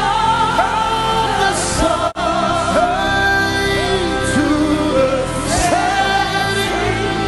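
Live gospel worship music with singing over sustained accompaniment, with a momentary drop-out in the sound about two seconds in.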